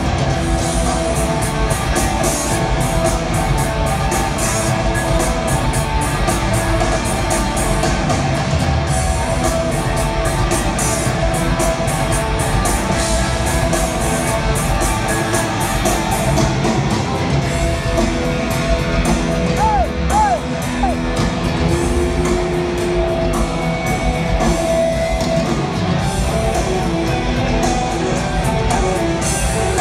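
A rock band playing live at high volume: heavy, distorted electric guitars with drums, a dense unbroken wall of sound.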